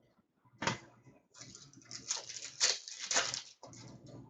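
Trading cards being handled: a sharp rustle, then a run of uneven sliding and swishing sounds as cards are moved through the hands.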